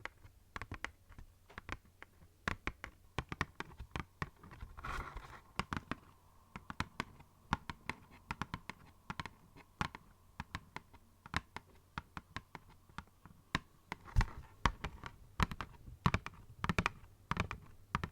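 Fingernails tapping lightly on an empty cardboard snack box, in quick, irregular taps, several a second.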